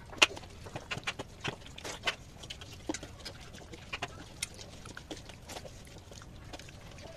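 Wet hand-eating sounds: fingers squishing and mixing rice with fish curry on a steel plate, giving an irregular string of sharp clicks and smacks, the loudest just after the start.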